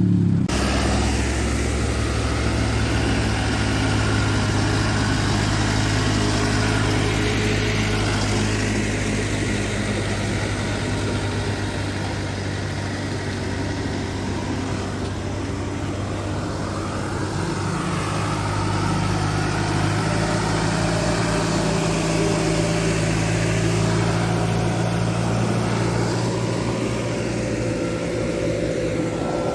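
Heavy vehicle's engine running steadily at low revs, its pitch shifting slightly a little past the middle.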